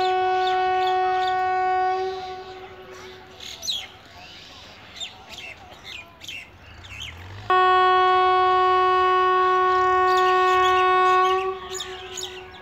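An approaching locomotive's horn sounds two long, steady blasts on a single pitch. The first stops about two seconds in, and the second, about four seconds long, starts past halfway. Birds chirp in between.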